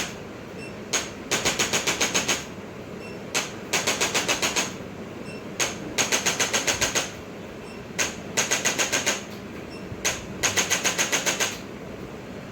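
A mechanical device firing five bursts of rapid clicks, about ten a second. Each burst lasts about a second and opens with a single click, and the bursts come about every two seconds.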